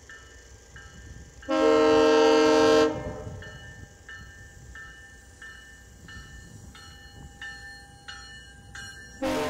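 Commuter train locomotive's air horn sounding one loud blast of about a second and a half as the train approaches, with a bell dinging about twice a second before and after it. A second horn blast starts just before the end.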